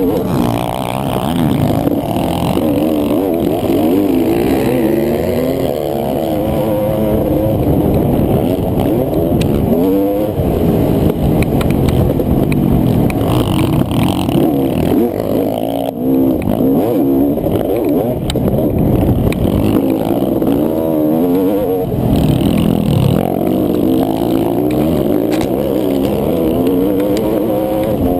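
Honda CR500AF's two-stroke single-cylinder engine ridden hard on a motocross track, its pitch climbing and dropping over and over as the rider accelerates, shifts and rolls off the throttle.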